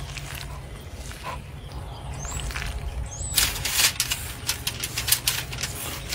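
Soft rustling as a gloved hand works shredded cheese into ground meat, then, about three and a half seconds in, a run of sharp crackles and crunches as a knife cuts into the crusty bark of a smoked roast on aluminium foil. A bird chirps faintly twice just before the crackling starts.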